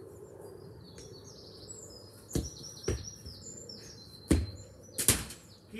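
A football being kicked and bouncing: four sharp thuds in the second half, the first two about half a second apart. Birds chirp steadily throughout.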